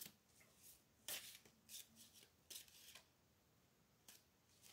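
Faint tarot deck being shuffled by hand: several brief, soft card swishes at uneven intervals.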